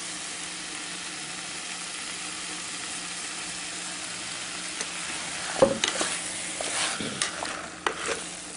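Vegetables and masala paste sizzling steadily in an aluminium pressure cooker pan. From about five and a half seconds in, a wooden spatula stirs the mix, scraping and knocking against the pot.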